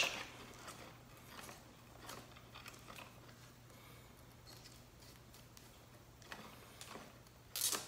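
Faint scattered clicks and small handling noises of electrical wires being worked onto a switch's terminals, with a louder clatter near the end.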